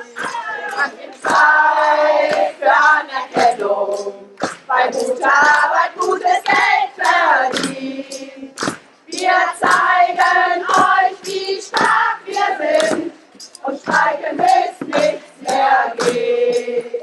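A group of women singing a German strike song together, with steady hand-clapping to the beat.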